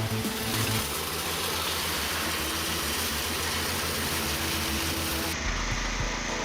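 Engine of a large wood-processing machine running steadily with an even, pulsing rumble. It cuts to a different machine sound about five seconds in.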